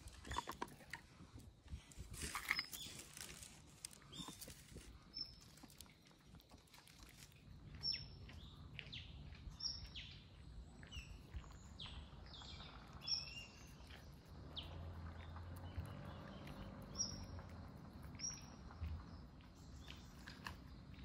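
A cat eating kibble from a bowl, with crisp crunching and chewing clicks. A bird chirps, short high calls repeated every second or two.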